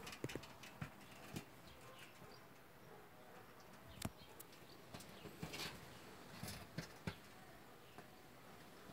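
Faint, scattered taps and scrabbles of young rabbits' feet and claws shifting about in a metal feed bowl, a few sharp knocks spread through an otherwise quiet hutch.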